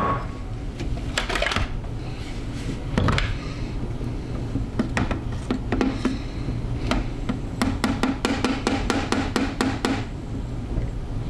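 Kitchen utensil knocking and scraping against bowls as cheese dip is dished out: scattered clicks and knocks, then a quick run of about a dozen taps, about five a second, near the end.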